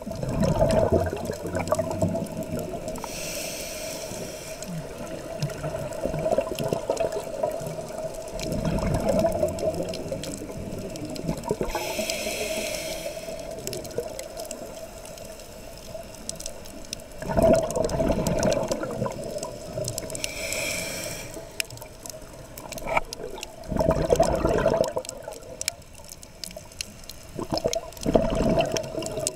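Scuba diver breathing through a regulator underwater: three hissing inhales, each some seconds after a loud rush of exhaled bubbles, in a slow repeating cycle over a steady hum.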